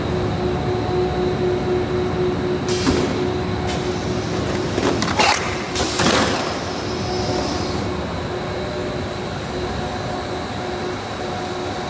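Plastic sheet extrusion line running with a steady hum. About three seconds in, the sheet cross-cutter cycles: a burst of hiss, then two louder noisy strokes around five and six seconds in as it cuts the PC/ABS sheet to length.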